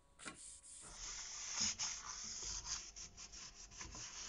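Paper towel rubbed back and forth over the rusty steel blade of a hand saw: a dry scrubbing rasp of quick, uneven strokes that starts about a second in.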